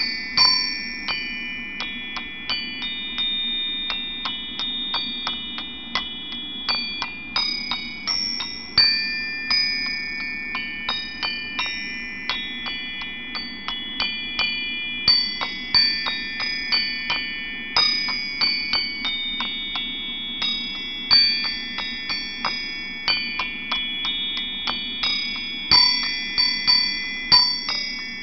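Tuned metal percussion of the glockenspiel kind: high notes struck one after another at an uneven pace, each ringing on so that the notes overlap, over a faint low hum.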